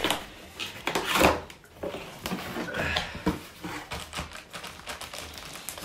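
Cardboard box flaps being pulled open and handled, with irregular scraping, rustling and small knocks. The loudest scrape comes about a second in.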